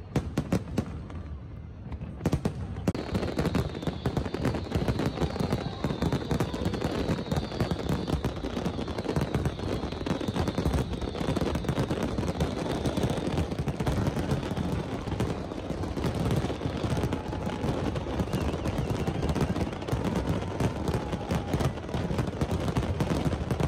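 Fireworks display firing a rapid barrage: a few separate bangs for the first couple of seconds, then a dense, continuous volley of bangs and crackles.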